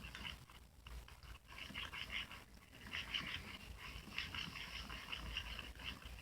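Glue and weak borax activator being stirred in a bowl: soft, wet, sticky squelching and crackling as the mixture starts to clump into slime, in short irregular bursts.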